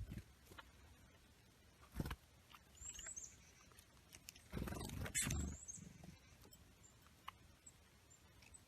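Small songbirds giving a few short, high chirps, about three seconds in and again a little after five seconds. Brief noisy rustles come in between; the loudest, lasting about a second, comes around five seconds in.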